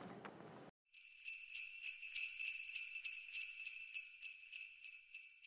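Sleigh bells jingling, shaken in an even rhythm of about four shakes a second, starting about a second in and fading out toward the end.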